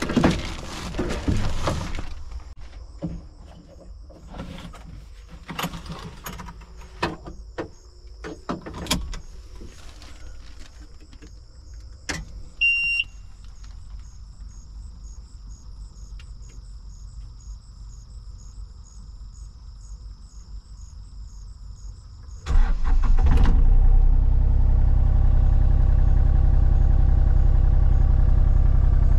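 Inside the cab of a Takeuchi TB235-2 mini excavator: clicks and knocks from the controls and switches, a faint high whine, and one short beep as the machine is powered up. About three-quarters of the way through, the diesel engine starts abruptly and settles into a steady idle.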